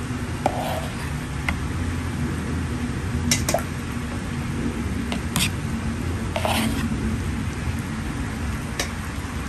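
Metal ladle stirring and skimming frothy green sương sâm leaf juice in a plastic mixing bowl, with a few sharp clicks of the ladle knocking the bowl.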